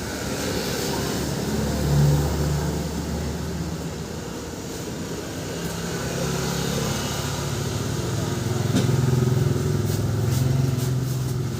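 High-pressure washer's motor and pump running with a steady low hum that swells and eases a few times.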